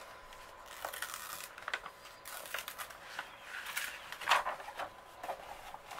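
Diamond painting canvas and its plastic protective film rustling and crinkling as they are handled and lifted, with a sharper crackle about four seconds in.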